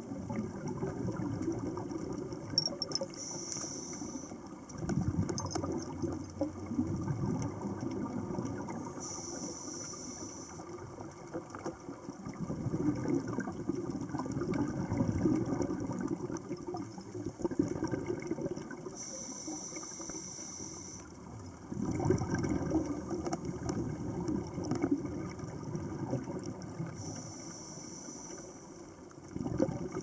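Scuba regulator breathing heard underwater: a short hiss of inhalation through the demand valve, then a longer low bubbling rumble of exhaled air, repeating about four times.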